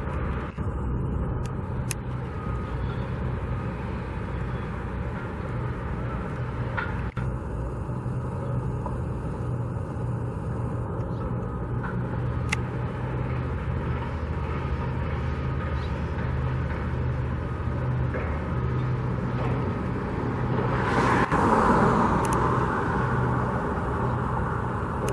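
Steady low rumble of motor-vehicle engines, with one louder swell near the end as a vehicle passes close by.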